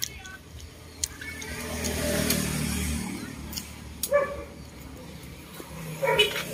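A motor vehicle passing, its engine and tyre noise building and fading over about two seconds. A few sharp clicks follow, then short voice sounds near the end.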